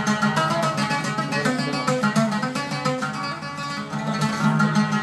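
Oud played solo in an instrumental interlude of a mawwal: a quick run of plucked notes over ringing low strings.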